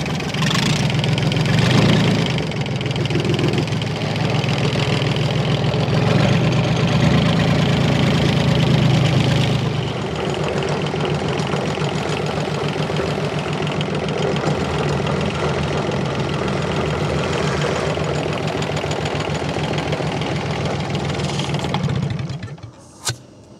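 Small river boat's engine running steadily under way, easing a little about ten seconds in, then shut off near the end. A single sharp click follows.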